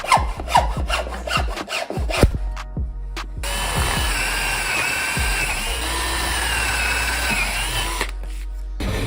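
A series of sharp metallic knocks and clicks, then a power tool runs for about five seconds with a wavering whine and cuts off near the end.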